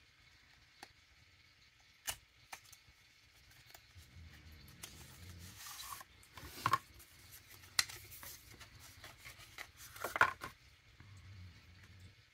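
A small paperboard cosmetics box being handled and opened by hand: scattered clicks and snaps with spells of cardboard rustling and scraping.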